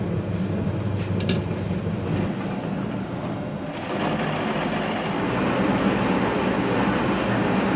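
Large commercial dough mixer running, its hook turning dough in the steel bowl: a steady mechanical hum with a few clicks about a second in, growing louder and more rushing from about four seconds in.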